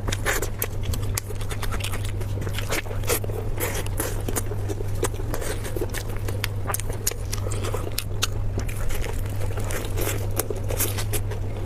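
Close-miked eating sounds: chewing, with many quick, irregular wet smacks and crunches of food in the mouth, over a steady low hum.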